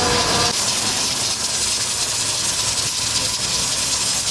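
Steady hiss from a gas stove range, with pressure cookers sitting on its lit burners. A steady pitched tone cuts off about half a second in.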